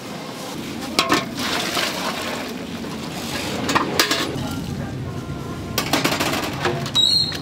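A large pot of noodles at a rolling boil, bubbling steadily, with a few knocks and scrapes of metal utensils against the pot: sharp clicks about one, four and six seconds in.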